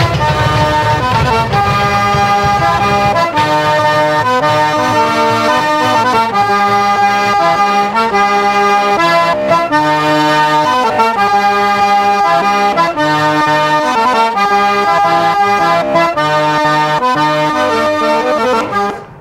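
Accordion playing a melody of held notes over band music. The heavy low end drops away about three seconds in, and the music stops abruptly at the very end.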